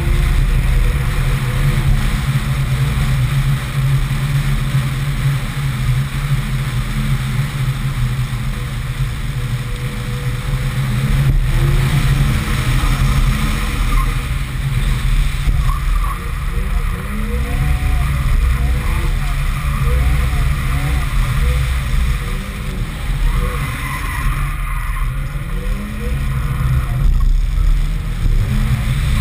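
Turbocharged Toyota 1JZ straight-six in a drifting Corona wagon, revs rising and falling again and again, heard from outside on the roof under a heavy low rumble of wind on the microphone.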